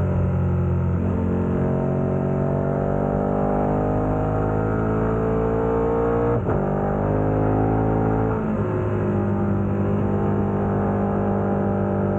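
KTM 1290 Super Adventure's V-twin engine through a Wings aftermarket exhaust, pulling hard with its note climbing under acceleration. A brief break about six seconds in marks an upshift, and the note climbs again. Near the end the note falls and holds steady as the throttle eases.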